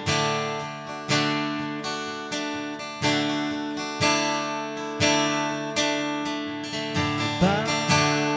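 Background music: acoustic guitar chords strummed about once a second, with a brief sliding note near the end.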